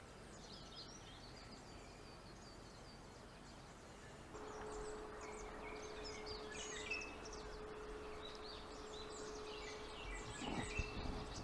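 Faint outdoor ambience of small birds chirping and calling in short, quick notes, growing busier about four seconds in. A steady low hum starts at the same time, and there is some soft rustling near the end.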